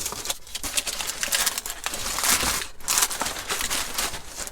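Crinkling and rustling of takeaway food packaging being handled as leftovers are tipped out and dished up, a dense run of crackles.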